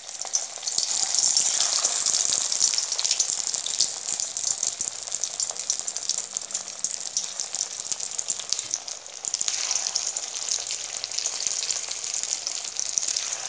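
Masala-coated pieces of elephant foot yam deep-frying in hot oil: a dense crackling sizzle that swells about a second in as a piece is dropped in, then carries on steadily.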